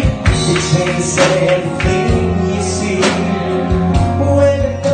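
A man singing into a microphone over loud amplified music with drums, heard through a bar's sound system.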